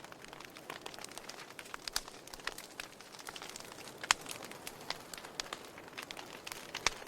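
Wood fire burning in a fireplace: a soft steady hiss of flames with irregular sharp crackles and pops from the logs, one pop about four seconds in louder than the rest.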